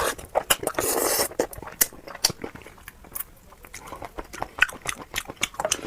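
Close-up eating sounds: a person chewing spicy bullfrog with wet, irregular mouth clicks and smacks, and a short noisy burst about a second in.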